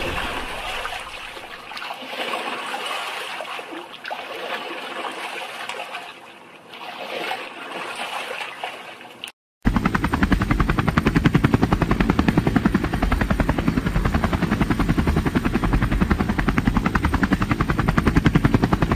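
Sound effect of water and waves washing, rising and falling. About nine and a half seconds in it cuts abruptly to a helicopter's rotor, a fast, steady, louder chop.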